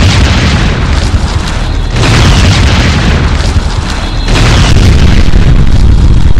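Explosion sound effects: a loud blast rumbling on, with fresh blasts about two seconds in and again just past four seconds, heavy in the low end.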